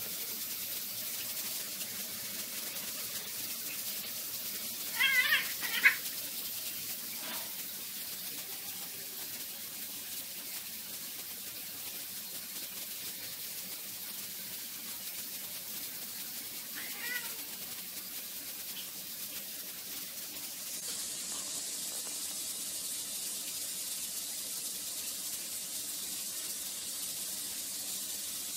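Domestic cat giving a loud, wavering yowl about five seconds in that ends in a sharp click, and a fainter one around seventeen seconds, over a steady background hiss. These are hostile calls between two cats squaring off.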